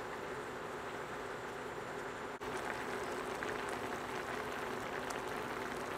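Chicken in a Coca-Cola and soy sauce liquid bubbling and popping at a steady boil in an uncovered pan, reducing toward a thick gravy, over a steady hum. The sound briefly drops out about two and a half seconds in.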